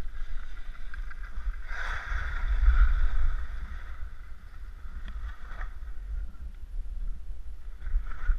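Skis sliding and scraping over snow, loudest between about two and four seconds in, over a steady low rumble of wind on the microphone.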